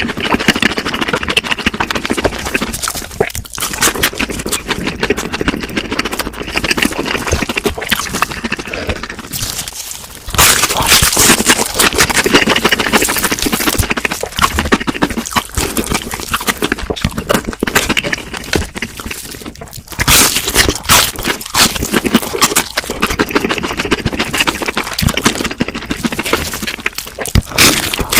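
Close-miked eating sounds: chewing and crunching of crispy fried food, with a dense crackle of crunches and louder fresh bites about ten and twenty seconds in.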